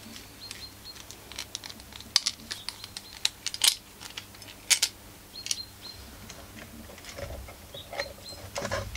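Scattered light clicks and taps of small metal parts and tools being handled on a workbench, irregular and sharp, over a faint steady hum. Near the end the clicks bunch up as the small two-stroke engine is picked up.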